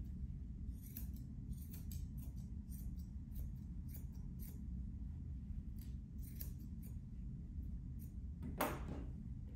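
Grooming scissors snipping the fur on a Shih Tzu's front leg in quick, irregular cuts. There is a louder knock near the end.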